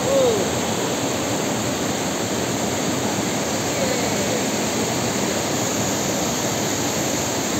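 Steady rushing of a small river's flowing water, an even hiss with no break.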